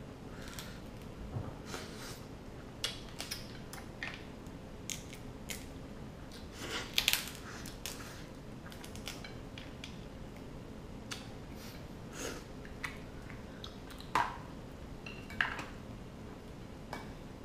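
Eating king crab by hand: irregular cracks and snaps of shell being broken, chewing, and light clinks of plates and cutlery, loudest about 7 and 14 seconds in.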